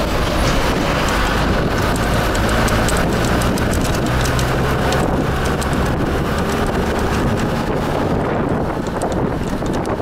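Steady engine and road rumble of a moving vehicle, heard from on board, with wind noise on the microphone and light rattles.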